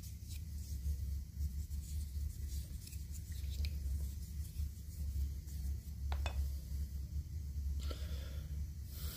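Faint rubbing of oily hands working a small mulberry-wood spoon over a steady low hum, with a couple of light wooden clicks near the end as the spoon is set down on a wooden slab.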